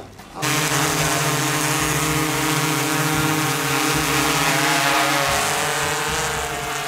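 A large four-rotor camera drone hovering close by: the steady buzzing hum of its propellers, which starts suddenly about half a second in, with a slight shift in pitch about five seconds in.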